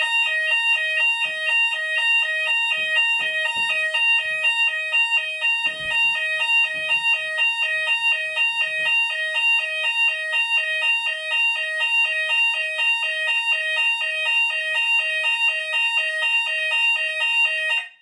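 Hochiki ESP addressable fire alarm sounders sounding a continuous, evenly repeating multi-tone alarm, set off by a smoke detector given test smoke spray; the alarm cuts off abruptly near the end.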